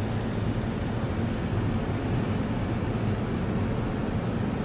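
Steady drone of a car's engine and tyres, heard from inside the cabin while it drives along the highway.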